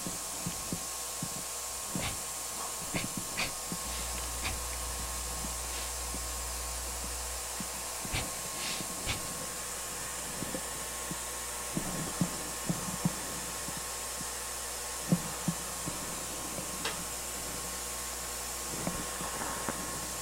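Scattered light clicks and taps of parts being handled on an electronics repair bench, over a steady hiss and a faint high whine. A low hum comes in about four seconds in and stops a few seconds later.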